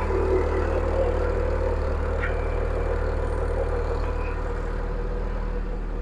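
1993 Honda Accord (SM4) engine idling steadily, running again now that its fuel pump is wired direct past the faulty anti-theft alarm system.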